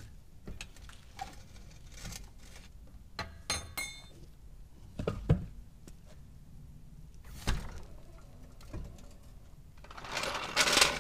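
Scattered knocks, clinks and thunks of a car wheel and tools being handled on paving, with a short ringing clink about four seconds in. Music starts to come in near the end.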